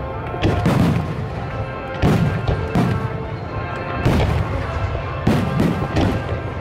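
Aerial fireworks shells bursting, a series of booms coming about one or two a second, each followed by a short rumbling echo.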